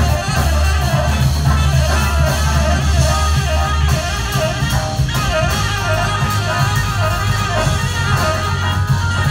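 Live jazz band playing loud, with heavy bass and drums under a tenor saxophone lead. About halfway through, a lead line settles into a short rise-and-fall figure repeated roughly twice a second.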